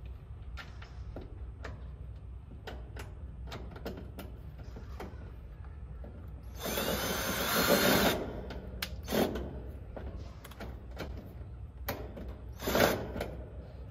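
Cordless drill driving sheet-metal screws into the AC condenser's metal cabinet. A few light clicks and knocks come first. The drill then runs hard for about a second and a half partway through, with shorter runs near the end.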